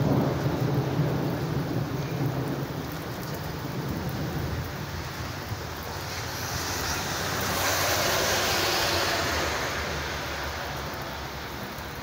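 Heavy rain falling steadily, with a low rumble of thunder that fades over the first few seconds. The rain's hiss swells to a peak a little past the middle, then eases.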